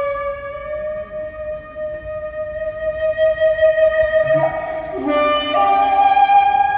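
Flute music: one long held note that slowly bends upward in pitch, then steps up to higher notes about four and a half and five and a half seconds in.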